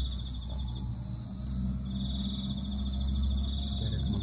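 An insect trilling at a steady high pitch, breaking off for about a second near the start and then resuming, over a continuous low rumble.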